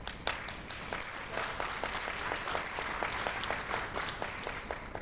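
Audience applauding: many overlapping hand claps.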